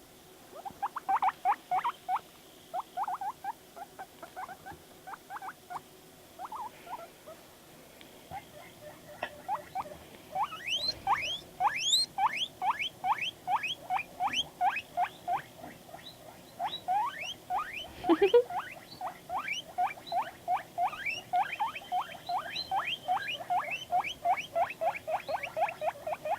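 Guinea pig wheeking: a long run of short, rising squeaks at about three a second, with a brief lull near the middle.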